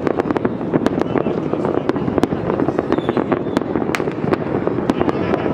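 Dense New Year fireworks: many bangs and crackles overlapping, several a second, without a pause.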